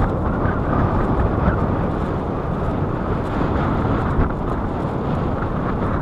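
Steady wind buffeting the microphone on a small boat at sea, a loud, even rumble with no distinct events.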